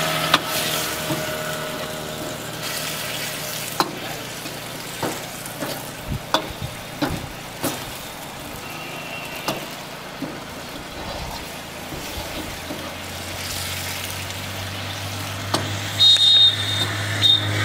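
Chicken masala sizzling in a large black wok while a metal ladle stirs it, with now-and-then sharp clanks and scrapes of the ladle against the pan. Near the end a louder, brief high-pitched sound cuts in.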